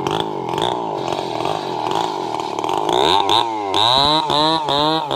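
Two-stroke Stihl chainsaw running hard, holding a fairly steady pitch for about three seconds, then revving up and dropping back several times in quick succession.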